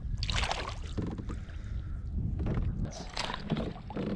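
Water splashing and sloshing around a boat as a hooked bass is fought in. Several short, uneven splashes sit over a steady low rumble.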